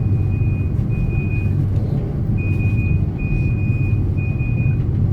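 Steady low rumble inside an airliner cabin on the ground after landing, with a high electronic beep repeating about once a second, mostly in the second half.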